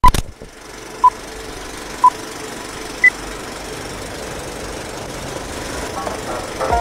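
Film-leader countdown sound effect: four short beeps one second apart, the last one higher, over a steady rattling hiss of film-projector noise. Music begins near the end.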